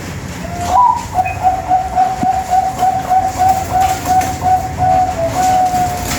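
A Bangkok-strain perkutut (zebra dove) singing: a rising opening note, then a rapid run of short coos at about four a second, ending in one longer held note.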